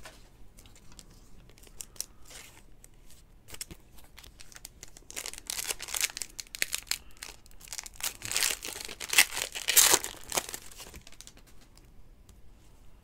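Foil wrapper of a trading-card pack crinkling and tearing as it is ripped open, loudest from about five to ten seconds in, after a few seconds of light clicks from cards being handled.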